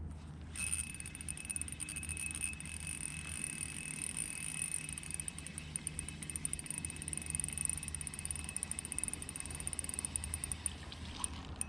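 Daiwa Fuego 2000 LT spinning reel being cranked to retrieve the lure: a steady high whine with fast fine ticking. It starts about half a second in and stops near the end.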